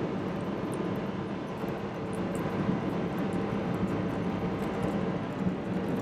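Steady engine and road noise of a vehicle being driven, an even rushing sound with a low hum underneath.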